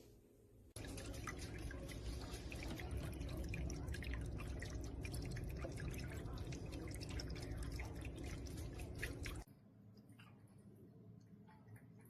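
Water trickling and dripping in a Neareal stainless steel cat water fountain, a dense patter of small drips that starts suddenly about a second in and cuts off suddenly after about eight and a half seconds.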